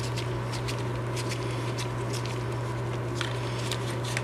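Faint, irregular clicks and ticks of a Hudy bearing puller being unscrewed by hand from a nitro RC engine crankcase as it draws out the rear bearing, over a steady low hum.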